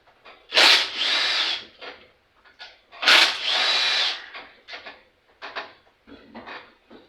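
Power drill/driver with a 5/16 socket backing out the bolts of a lawn mower's air filter base, in two runs of about a second each. Light clicks and clatter of parts come between and after.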